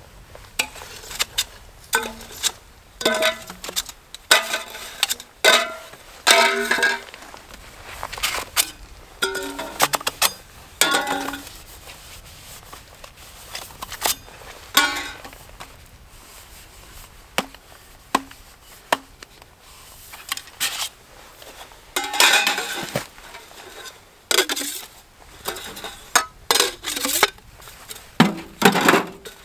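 Metal camping gear being handled and packed: a busy, irregular run of clinks and clanks, some strikes ringing briefly.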